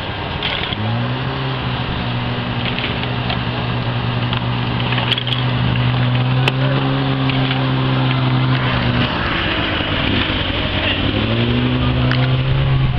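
Engine running with a steady drone; it revs up about a second in, holds its revs, falls off around nine seconds and revs up again near the end.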